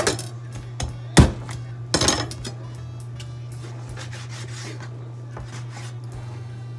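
Kitchen knife knocking against a plastic cutting board while raw chicken leg quarters are trimmed: three sharp knocks in the first two seconds, then faint cutting and handling sounds.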